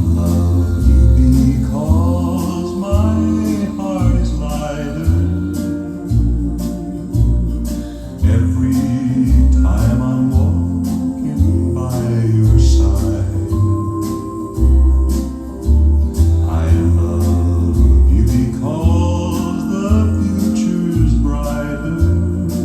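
A song with a singing voice over a heavy, steady bass line, played back through B&W 602 S3 bookshelf loudspeakers driven by a Marantz Ki Pearl Lite amplifier.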